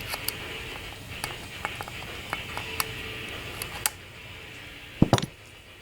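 Light metallic clicks and ticks of a piston ring and a piston ring expander being handled as the ring is spread and slipped over a Corvair piston into its groove, with one heavier thump about five seconds in.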